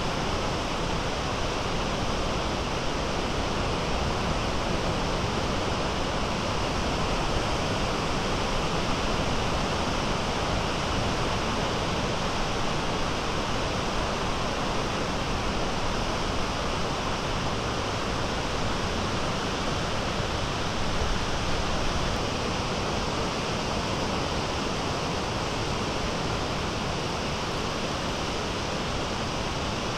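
Small Great Lakes waves breaking and washing in, heard as a steady, even rush of surf.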